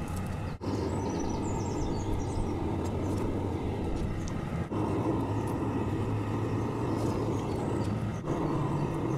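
Fired home-foundry kiln running with a steady rushing noise over a low hum while it melts aluminum from recycled cans in the crucible. The noise drops out for an instant three times, about half a second in, near the middle and near the end.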